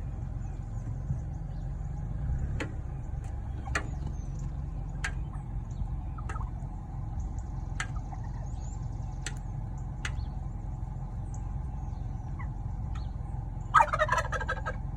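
Wild turkey tom pecking at a truck: sharp single taps about every second or so over a low steady rumble, then one loud gobble near the end.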